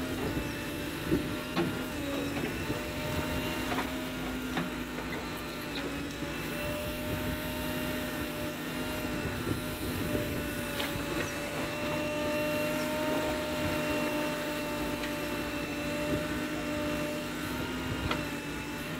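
JCB backhoe loader running steadily with a steady whine as its backhoe arm digs and turns over wet clay mud for brick-making, with occasional knocks from the arm and bucket.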